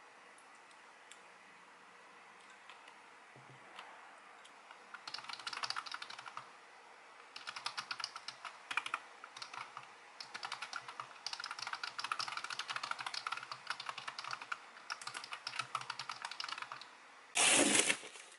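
Fast typing on a low-profile computer keyboard, dense runs of key clicks with short pauses, after a quiet start of about five seconds. Near the end comes a brief loud scrape of a cardboard box being handled on the desk.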